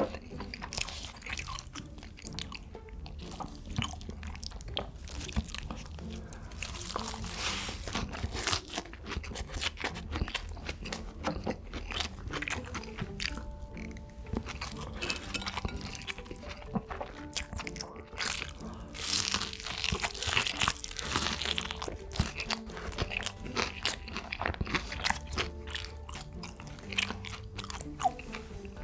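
A person chewing and crunching food, with many crisp, crackling bites throughout, and soft background music underneath.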